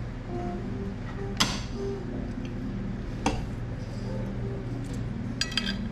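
Cutlery clinking against plates: a sharp clink about a second and a half in, another around three seconds in, and a quick run of light clinks near the end.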